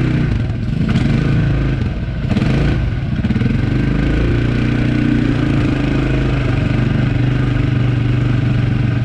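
ATV (quad bike) engine running at a steady, low trail speed, heard from on board. It is joined by a few knocks and rattles from the bumpy dirt track in the first few seconds.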